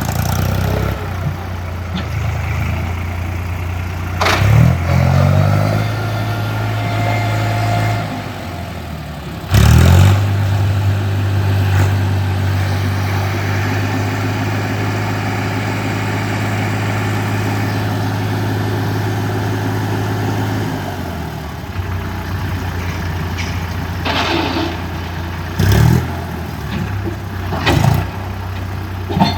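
Heavy vehicle diesel engine running, its speed stepping up about four seconds in and again near ten seconds, then dropping back about twenty-one seconds in. A few sharp knocks sound near ten seconds and twice near the end.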